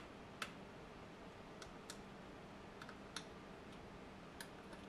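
Light, irregular clicks of multimeter probe tips tapping against components and pads on a circuit board, about ten faint ticks over a low, steady background.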